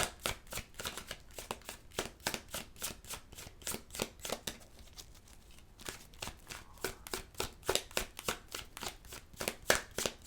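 Tarot deck being shuffled by hand: a quick, regular run of card slaps, about four a second, with a short pause near the middle.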